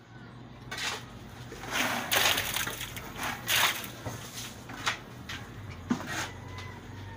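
Wet concrete tipped from a bucket into a steel-reinforced column form, slopping and splattering in several separate splashes.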